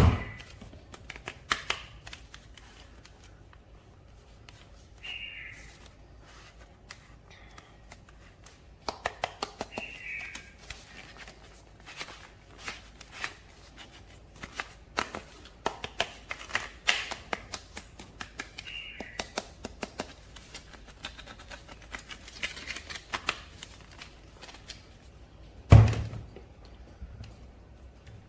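Hands handling plastic toy figures and their packaging: irregular clicks, taps and rattles, a few short squeaks, and one heavy thump about 26 seconds in.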